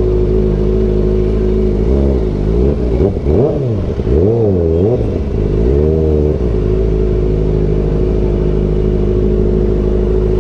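Kawasaki Ninja ZX-4RR's 399 cc inline-four engine idling steadily, blipped several times with quick rises and falls in pitch from about two seconds in, then settling back to a steady idle.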